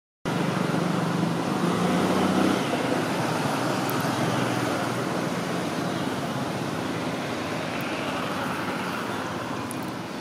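Steady rushing background noise, with a faint low hum during the first two or three seconds that then fades.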